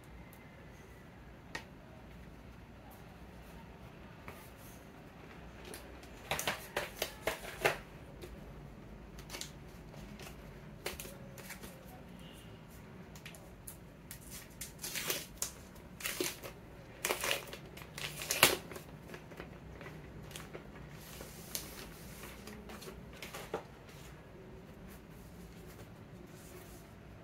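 Plastic wrapping crinkling and rustling in bursts as a tablet keyboard cover is handled and unwrapped, with scattered clicks and taps from the cover.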